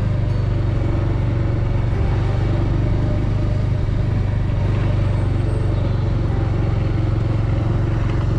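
Motorcycle engine running steadily as the bike rides along a road, a constant low hum.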